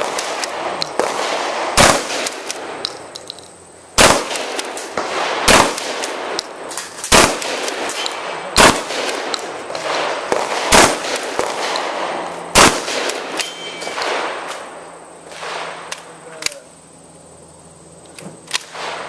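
12-gauge shotgun fired seven times, a shot every one and a half to two seconds, with steel targets clanging and ringing after the shots. The shooting stops about two-thirds of the way through, leaving a few quieter knocks.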